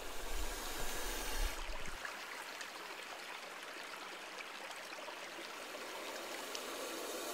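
Steady rushing hiss of outdoor background noise with a few faint crackles, and a low rumble during the first two seconds.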